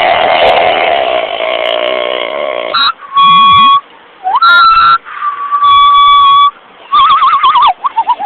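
A man making deliberately annoying noises with his mouth and voice. First comes a rough, rasping noise. Then, from about three seconds in, several loud, high, steady squealing or whistling tones, each held about a second. Near the end there are fast warbling tones that wobble up and down and fall.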